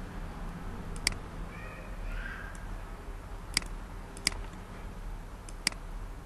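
Computer mouse clicking: four short, sharp clicks spaced irregularly, about one to two and a half seconds apart, over a steady low electrical hum.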